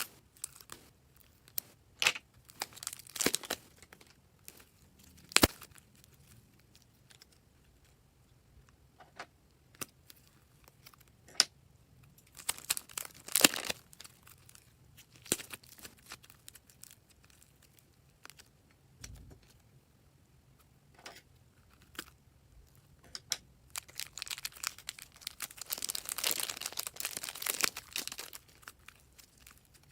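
Purple slime being handled, squeezed and stretched by hand: scattered sticky clicks and pops with a few crackling, tearing stretches, the longest near the end.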